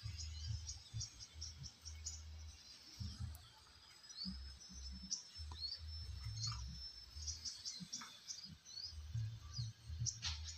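Outdoor pond-side ambience: birds chirping in short, high calls, with a thin high note held for a few seconds through the middle. A patchy low rumble runs underneath.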